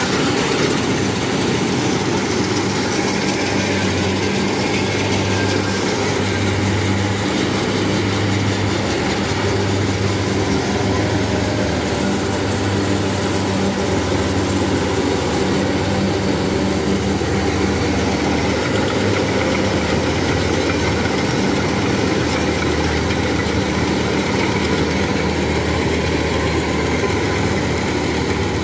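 Crawler rice combine harvester's diesel engine running steadily under load while it cuts and threshes rice, a constant low hum under the noise of its working gear.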